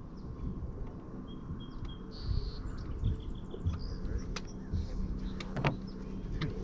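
Low rumble of wind on the microphone over open water, with a few faint high chirps in the first half and several sharp clicks later on.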